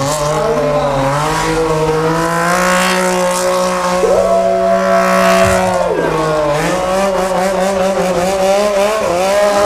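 Sport motorcycle engine held at high revs while the rear tyre spins in a burnout. The pitch stays mostly level with small wobbles, dipping briefly near the start and again about six and a half seconds in. A higher steady tone joins for about two seconds in the middle.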